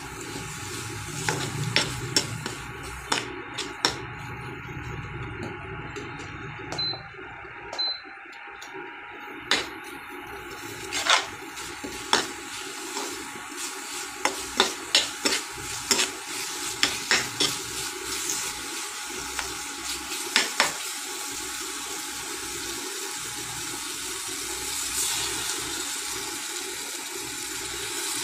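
Dried-fish chutney mixture sizzling in oil in a frying pan, with a steady hiss, while a steel spatula stirs it, scraping and knocking against the pan in many sharp clicks, thickest around the middle.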